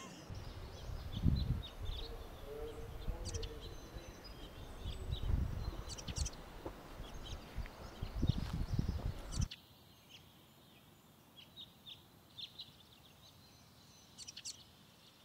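Outdoor ambience of small birds chirping over gusty wind rumbling on the microphone. About nine and a half seconds in, the wind cuts off abruptly and only a few faint chirps remain.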